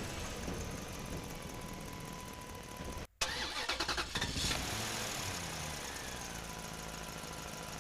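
Low, steady engine-like running sound of a vehicle. About three seconds in it cuts out abruptly, then about a second of rapid rattling pulses follows before the steady running resumes.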